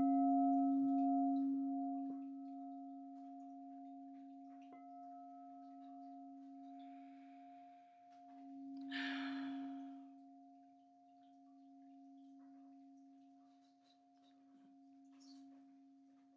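Crystal singing bowl ringing with a steady low hum and a fainter, higher overtone. It is tapped right at the start, then slowly fades, swelling again about nine seconds in along with a brief hiss.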